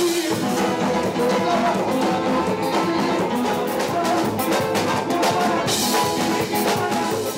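Live band playing loud music: a brass-sounding melody over keyboards and a steady drum beat.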